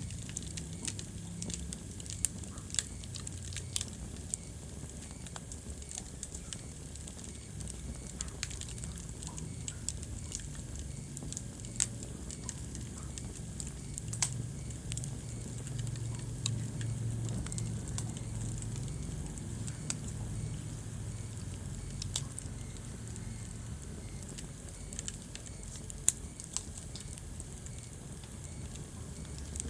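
Wood fire burning in a fireplace: a low steady rumble of the flames with scattered crackles and occasional sharper pops from the burning logs.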